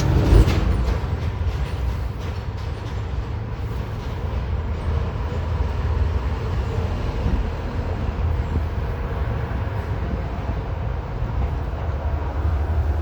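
Steady low rumble of city street traffic, with a short knock about half a second in.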